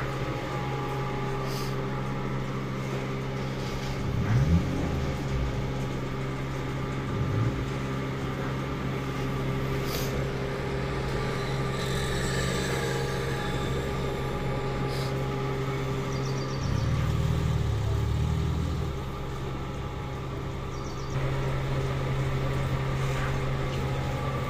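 Motor-driven wooden oil press (chekku) running steadily while crushing groundnuts, a low machine hum with a few sharp clicks now and then.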